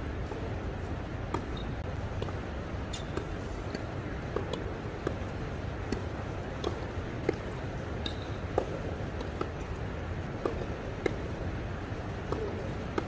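Tennis ball hit back and forth by rackets in a quick volley rally: a short sharp knock roughly every two-thirds of a second, over a steady low rumble.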